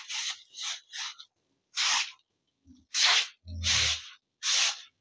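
A broom or squeegee pushing water across a wet concrete pen floor in short, regular swishing strokes, about one a second.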